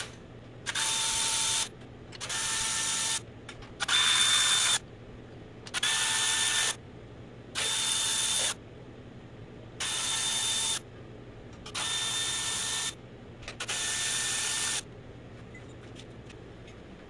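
A cordless power tool runs out 10 mm valve cover bolts one after another. There are eight runs of about a second each, each a steady motor whine, with small clicks of the socket and bolts in between.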